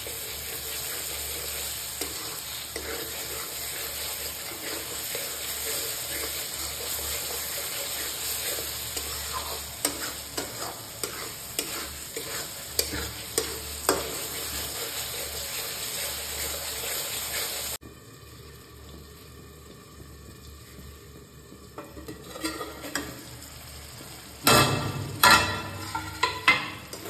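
Tomatoes and masala frying in oil in a metal kadhai, sizzling steadily while a spatula stirs and scrapes them, with scattered clicks of the spatula against the pan; the tomatoes are being cooked down with salt until they soften. About two-thirds through the sizzle drops suddenly to a quieter level, and near the end a few loud knocks and scrapes of the spatula on the metal.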